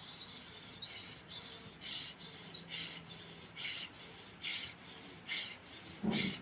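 Bhastrika pranayama (bellows breath): forceful, rhythmic breaths pumped in and out through the nose. There are about eight sharp, hissing breaths, a little more than one a second. Faint bird chirps sound in the background.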